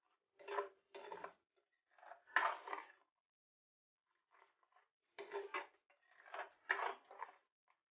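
Spatula stirring and scraping thick coconut-and-onion masala gravy around a kadhai, in short strokes in irregular groups, with a pause of about a second near the middle.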